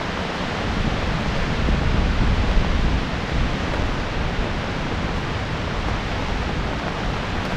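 Storm wind and rain: a loud, steady rush of noise, with heavy wind buffeting the microphone.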